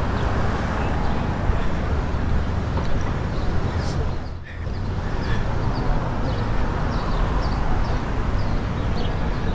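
City street ambience: steady traffic noise with a heavy low rumble, dipping briefly about halfway through. Short high chirps sound over it in the second half.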